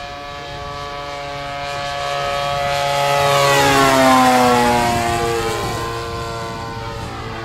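Radio-controlled model aeroplane's engine and propeller running as it makes a fly-by pass. It grows louder to a peak about four seconds in, the pitch drops as it goes past, and then it fades.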